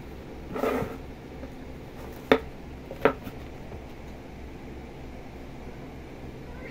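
A cat scuffling around a sisal scratching post: a short scrabbling rustle about half a second in, then two sharp knocks under a second apart, over a steady low hum.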